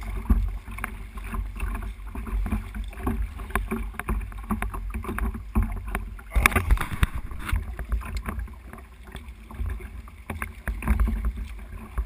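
Water splashing around a sea kayak and its paddle, with many short splashes over a low wind rumble on the microphone; a louder burst of splashing about six and a half seconds in.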